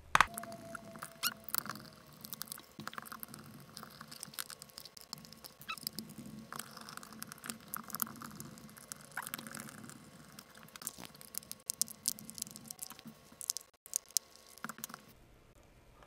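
Small Phillips screwdriver backing screws out of the plastic back shell of a VEX IQ controller, played fast-forward: rapid scratchy clicks and squeaks of the tip turning in the screw heads, with light taps of the plastic being handled.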